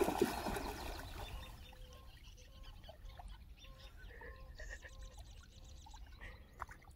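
Australian cattle dog splashing through the water and then paddling, the splashing loudest in the first second and then dying away to quiet swimming. Faint, short animal calls repeat through the rest.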